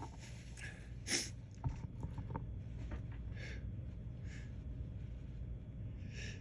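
A man sniffing and breathing in between sneezes, working up to the next allergy sneeze: a sharp sniff about a second in, two softer sniffs a few seconds later, and a few small clicks.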